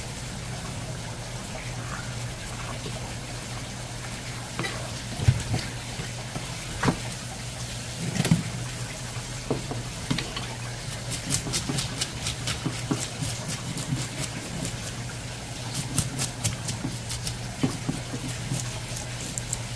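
Running water under a steady low hum, with a few single knocks and, later, runs of rapid sharp clicking.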